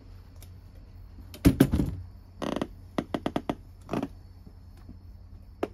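A grey cat moving about on a cushioned chair and table right against the microphone: a heavy thump with rustling, then a quick run of about six sharp clicks and more rustles. A cricket trills steadily underneath.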